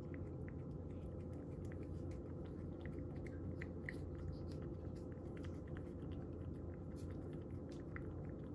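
Cat eating dry kibble from a bowl: scattered soft crunches and clicks of chewing at an irregular pace, over a steady low hum.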